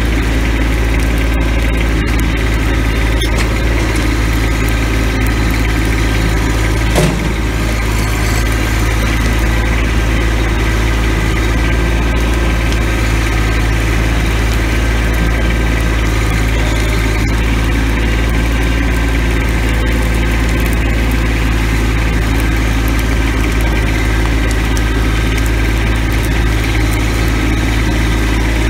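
Compact tractor engine running steadily, heard from the operator's seat while the front-loader tractor works at a brush pile. A single short clunk comes about seven seconds in.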